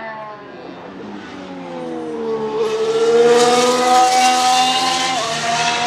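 McLaren MCL34 Formula 1 car's Renault E-Tech 19 turbocharged V6 hybrid engine. The pitch sinks at first, then climbs steadily as the car accelerates past and grows loud. About five seconds in the pitch drops suddenly in an upshift.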